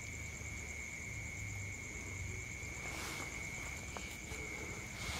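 Crickets chirring steadily at night: one constant high-pitched trill and a second, higher, finely pulsing trill, with a brief rustle about three seconds in.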